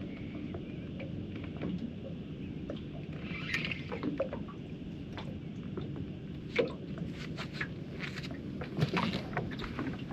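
Water washing softly against a small boat's hull, with scattered light clicks and knocks that come more often in the second half as the angler plays a hooked flathead on rod and reel and moves about the deck.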